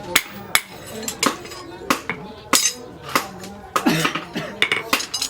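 A hammer striking steel in sharp, ringing metallic blows, about two a second at an uneven pace, as the leaf-spring steel is worked into a knife.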